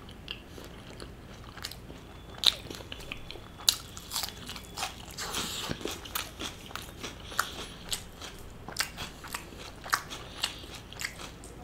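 Close-miked chewing of paratha with tawa chicken: wet mouth clicks and small crunches at an irregular pace, with a few sharper clicks.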